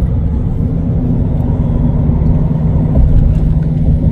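Steady low rumble of road and engine noise from a moving vehicle, heard inside the cabin while driving.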